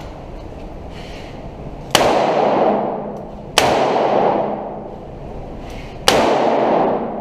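Three revolver shots, the first about two seconds in and the next two about one and a half and two and a half seconds apart. Each one rings on in a long echo off the concrete walls of an indoor range.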